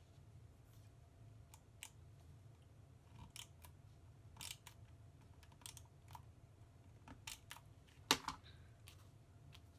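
Handheld double-sided tape runner being drawn across paper in short strokes, with scattered light clicks and brief rasps of paper being handled. A sharper knock comes about eight seconds in.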